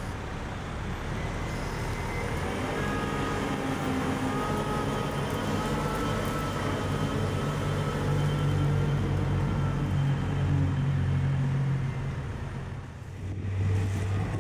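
Diesel engines of heavy CAT earthmoving machines (wheel loader and excavator) working under load. The engine note rises about three seconds in, holds with a thin whine over it, drops off briefly near the end, then picks up again.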